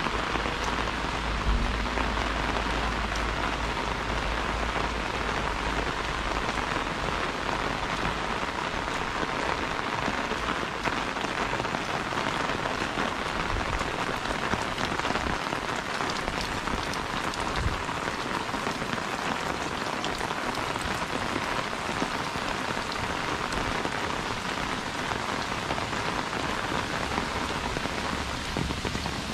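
Steady rain, drops hitting an umbrella held overhead and the wet ground around it, with fine scattered drop ticks throughout.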